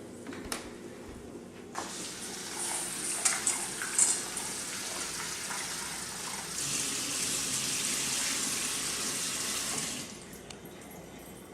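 Kitchen tap running water into a bowl while rice is rinsed, with a few clinks about three to four seconds in. The flow gets stronger near the middle and stops about a second and a half before the end.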